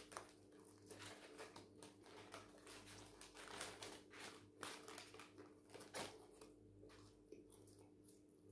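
Faint crinkling of paper food wrapping and tissue being handled, with scattered soft clicks, over a steady low hum.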